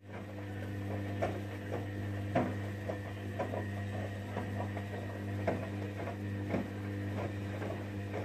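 Sangiorgio S5510I front-loading washing machine turning its drum during the wash: a steady motor hum under irregular splashes and soft knocks from wet sheets and water tumbling in the drum.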